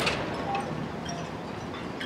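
The fading tail of an intro sound effect: a reverberant wash that dies away over the first second or so, with a few faint, scattered high pings.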